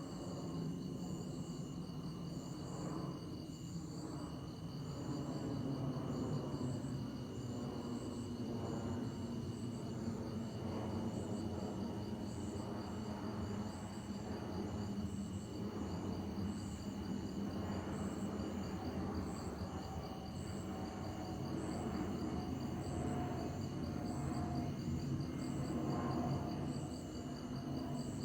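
Low, steady jet rumble from the Boeing C-17A Globemaster III's four turbofan engines as the aircraft passes overhead, with night insects trilling steadily in several high pulsing tones.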